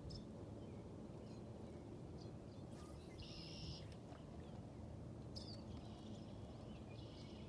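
Quiet outdoor ambience with a low steady rumble, and short bird chirps now and then, including a buzzy call about three seconds in.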